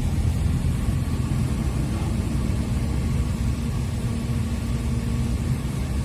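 Steady low rumble of a moving bus's engine and road noise, heard from inside the passenger cabin.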